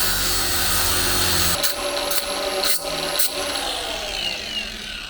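Power tool running under load, grinding, with a few sharp clicks about two to three seconds in, then its motor winding down with a falling whine.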